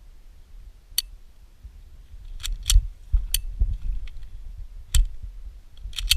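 Airsoft gunfire: single sharp shots at uneven intervals, about seven in all, two of them close together near the end, over a low rumble.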